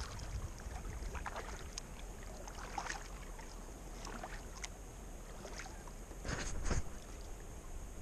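Faint water sounds of a kayak paddle: small splashes and drips as the blade dips and lifts, a little louder about three-quarters of the way through.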